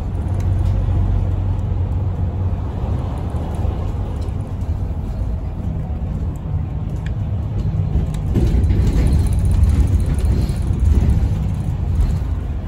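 Cabin noise inside a moving single-deck bus: a steady low rumble of the drivetrain and tyres on the road, swelling louder about two-thirds of the way through.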